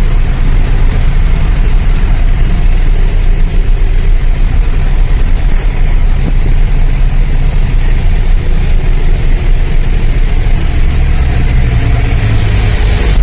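Truck engine running steadily with a continuous low rumble.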